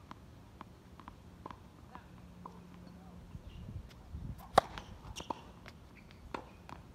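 Tennis serve on a hard court: a few light taps of the ball being bounced before the serve, then one sharp crack of the racket striking the ball about four and a half seconds in, followed by a few lighter taps.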